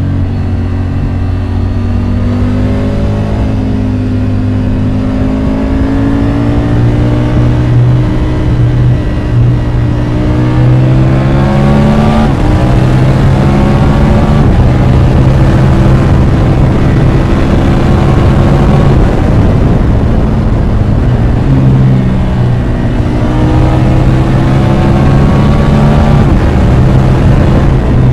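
Triumph Tiger 850 Sport's three-cylinder engine accelerating hard, its pitch climbing steadily and dropping sharply at two upshifts, about twelve seconds in and again a few seconds before the end, over a rush of wind noise.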